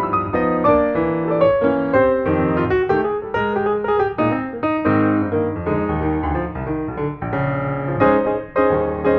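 Piano music, a flowing run of notes, several a second. No firework bangs are heard.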